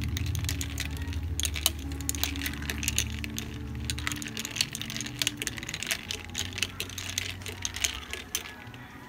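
Ice cubes clinking against the sides of a glass mug as a straw stirs an iced chocolate milk drink: a quick, irregular run of sharp clinks starting about a second and a half in and stopping near the end.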